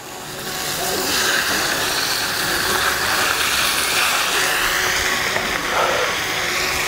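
Chopped ribeye beef and pork sizzling in hot lard and oil in a plow-disc discada. The sizzle swells over about the first second as the beef goes in, then runs steadily.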